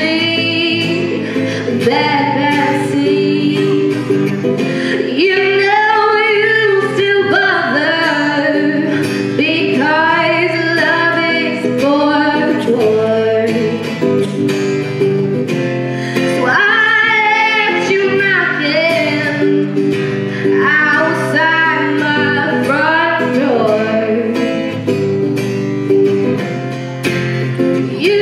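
A woman singing a song to a strummed acoustic guitar accompaniment.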